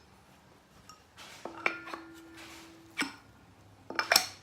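Metal clinks and knocks as a boat seat's swivel pedestal is worked in and out of its base to test the fit after grinding. One knock leaves a short ringing tone, and there is brief scraping between the knocks.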